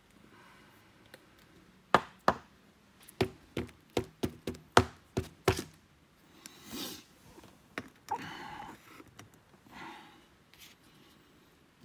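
About ten sharp taps and knocks in quick succession while trading cards are handled at a table, then softer rustling and sliding as a card is set into a plastic display stand.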